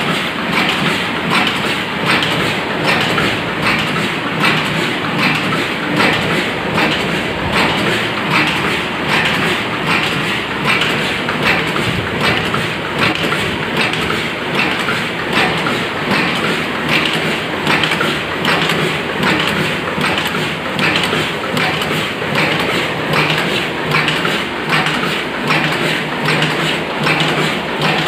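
HSD1000 paper cup forming machine running in production, its turret, forming stations and bottom-blank punch clattering in a steady, regular rhythm.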